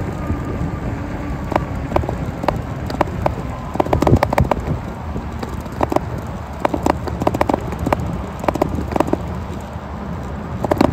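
Jasion e-bike on the move: a steady low rumble of tyres and wind with irregular clicks and rattles, bunched most thickly about four seconds in.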